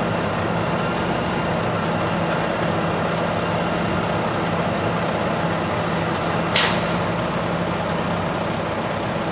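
Heavy truck's diesel engine running steadily, with one short sharp air-brake hiss about two-thirds of the way in.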